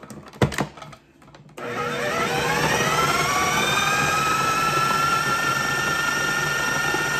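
A sharp knock about half a second in. Then a countertop food processor's motor starts, its whine rising as it spins up, and runs steadily, puréeing raw beef heart and liver, before cutting off near the end.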